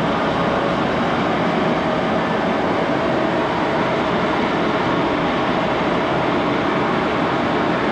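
1941 Axelson gearhead engine lathe running steadily, its headstock gears turning the chuck and a long steel bar, in a continuous even whir with a faint steady tone; the owner says it is really smoothing up after carriage gib adjustments.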